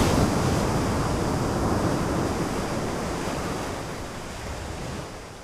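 A steady rushing noise with no tones in it, fading out gradually toward the end.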